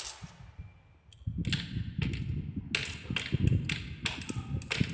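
Balls rolling down a handmade marble run track, with a low rolling rumble and a string of sharp, irregular clicks as they knock along the course. The rolling starts about a second in, after a short quiet moment.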